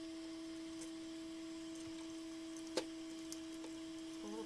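Steady single-pitched tone with a fainter overtone above it, coming from the amplifier under test while its ground is being checked. A single sharp click sounds a little under three seconds in.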